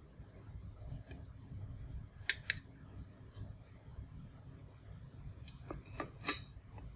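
A kitchen knife and a metal cake server clicking against each other and the plate as a slice of cake is handled: a few sharp clicks, the two loudest about two and a half seconds in, and a quick cluster of clicks near the end.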